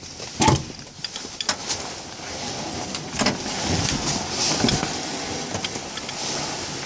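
Steady rustling and scraping of handling noise on a phone's microphone, with a few sharp knocks, the loudest about half a second in.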